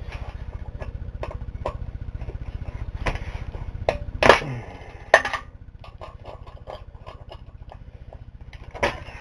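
Scattered metal clanks and knocks of engine parts being handled and pulled apart during a Briggs & Stratton engine teardown, the loudest about four seconds in. A steady low rumble runs underneath.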